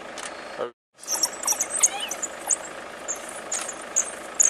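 A pack of African wild dogs twittering: many short, high-pitched chirping calls in quick succession, the excited calling of a pack at prey. The sound cuts out completely for a moment less than a second in.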